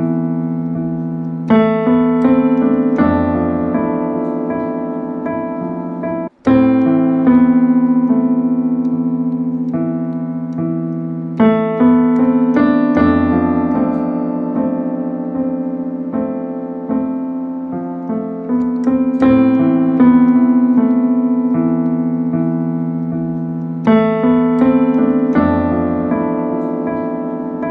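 Instrumental piano music: slow, held chords struck every few seconds and left to fade, with a very brief break in the sound about six seconds in.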